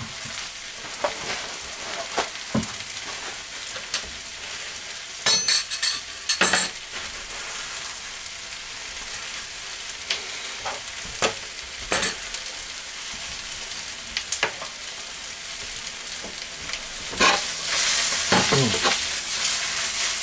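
Vegetables, seafood and glass noodles with chilli flakes frying in oil in a wok, a steady sizzle, with a spatula now and then scraping and knocking against the pan. The stirring gets busier and louder near the end.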